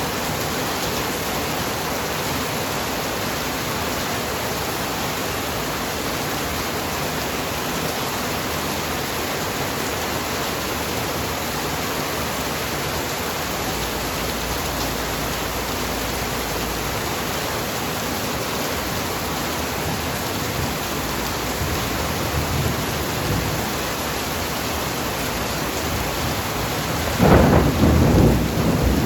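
Heavy rain pouring steadily, with faint low thunder rumbles partway through and a loud rolling clap of thunder near the end.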